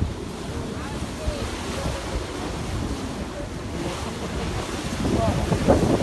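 Wind buffeting the microphone on the open deck of a moving cruise boat, a steady low rumble with a rush of water beneath it, growing louder about five seconds in. Faint voices of passengers come through now and then.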